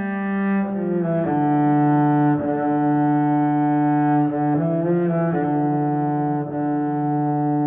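Music: a slow line of long, held bowed low-string notes, cello-like, moving from note to note every second or so.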